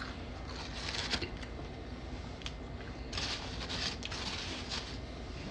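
Close-up chewing of crispy fried catfish: crackly mouth sounds that come in a few short bursts, about a second in and again around the middle.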